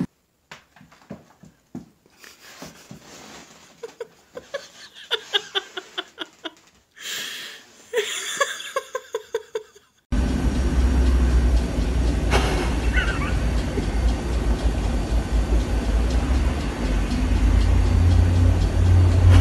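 Scattered clicks, then a quick run of hard taps, about three or four a second, from a dog walking in boots on a hard floor. About halfway through this gives way to a steady, loud low rumble with hiss, with one short high chirp soon after.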